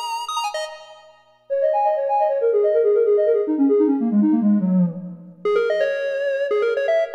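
Yamaha S03 synthesizer playing its factory voices: a phrase fades out, then a run of notes stepping down in pitch begins about a second and a half in, and a brighter sound with quick, detached notes starts near the five-and-a-half-second mark.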